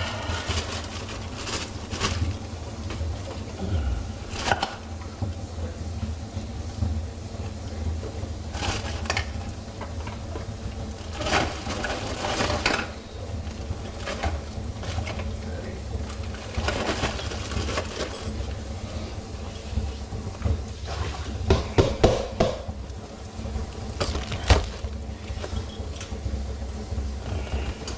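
Intermittent clinks, knocks and rustles of tools, parts and plastic packaging being handled under a kitchen sink during a garbage disposal install, over a steady low hum.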